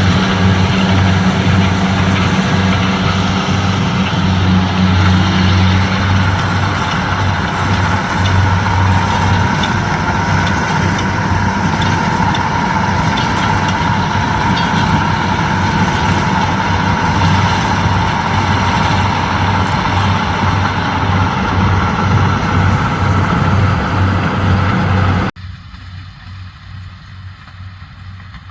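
A corn harvesting machine's engine running steadily, with a heavy pulsing low hum under a constant mechanical whir. About 25 seconds in the sound cuts off abruptly and drops to a much quieter engine hum.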